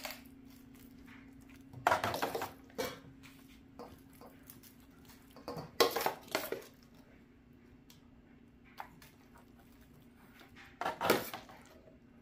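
Metal spoon scraping and clinking against a stainless steel mixing bowl while scooping out thick sour cream filling, in short bursts about two seconds in, around six seconds in and about eleven seconds in. A faint steady low hum runs underneath.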